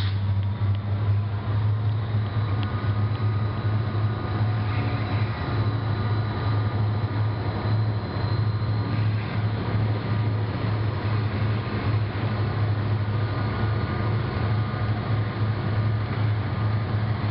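Diesel locomotives hauling a train, their engines giving a steady low drone with a few faint steady higher tones above it.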